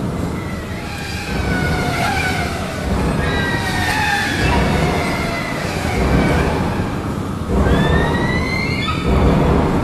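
Wailing, siren-like tones sliding up and down a few times over a steady low rumble.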